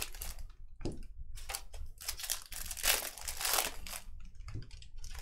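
Baseball card pack wrappers crinkling and tearing as Topps Stadium Club packs are opened and handled, in irregular rustles with no steady rhythm.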